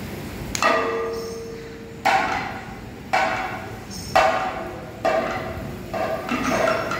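Kathakali accompaniment percussion: about six sharp metallic strikes at uneven intervals, roughly one a second, each ringing out and fading before the next.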